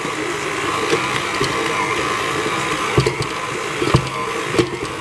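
Stand mixer running with its dough hook kneading brioche dough as butter is worked in: a steady motor hum, with two knocks about three and four seconds in.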